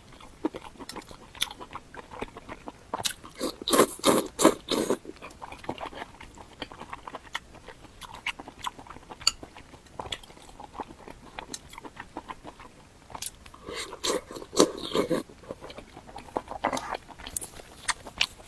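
A person chewing and biting food with crunching and mouth clicks. Two louder spells of crunching come about 3 to 5 seconds in and again about 14 to 15 seconds in.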